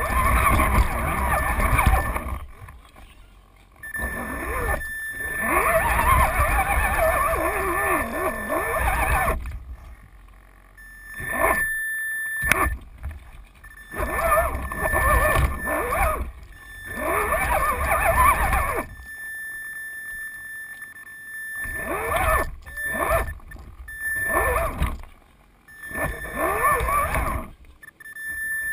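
RC crawler's motor and gear drive whining in repeated bursts as it is throttled on and off, the pitch wavering with the motor's speed.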